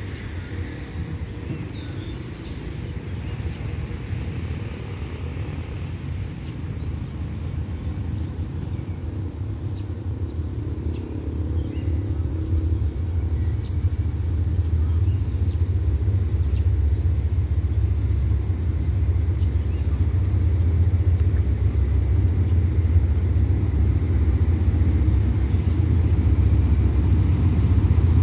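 Diesel-electric locomotive of an express train approaching, its low engine rumble growing steadily louder as it nears.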